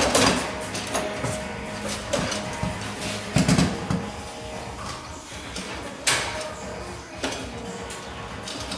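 Foosball being played on a Bonzini table: the ball knocked by the players' figures and the rods clacking, a few sharp knocks, the loudest about three and a half seconds in and another about six seconds in.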